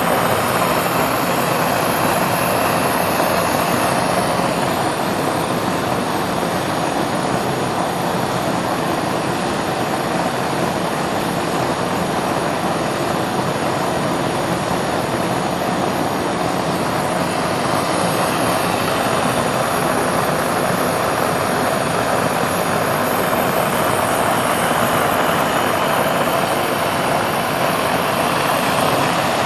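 Gas burner's flame jet firing steadily against a fire-barrier panel under a flame test: a constant, even rushing noise with no change in level.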